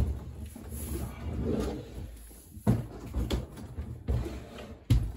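A Behringer X32 digital mixing console being turned over by hand and set down on a workbench. Its chassis gives several dull knocks and bumps against the bench, the strongest at the start and near the end, with softer handling sounds between.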